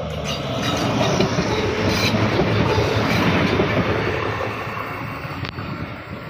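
Diesel multiple unit passing close by: engine and wheel noise that swells within the first second, with clicks of the wheels over the rail joints, then fades away over the last couple of seconds.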